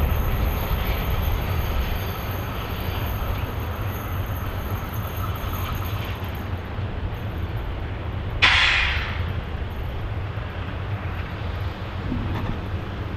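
SU42 diesel locomotive hauling passenger coaches on its approach, its engine a steady low rumble. About two-thirds of the way through a sudden loud hiss cuts in and fades away over about a second.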